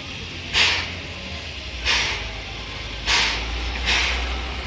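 Steam locomotive C11 325 standing in steam, letting out four short hissing puffs of steam about a second apart: the beat of its steam-driven air pump, over a steady low rumble.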